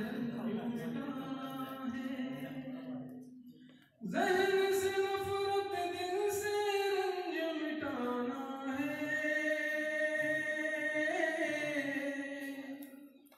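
A man singing a ghazal unaccompanied, in long, drawn-out notes that bend in pitch. The voice stops for a breath about four seconds in, then comes back louder and holds its notes until it trails off near the end.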